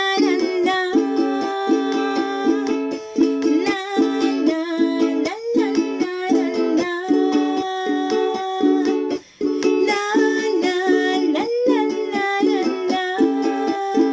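Children's song music led by a strummed ukulele, with a steady repeating chord rhythm and a melody line over it.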